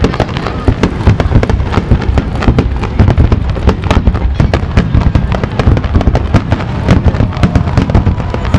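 A fireworks barrage: many aerial shells launching and bursting in quick succession, a dense run of loud bangs several a second over a continuous low rumble.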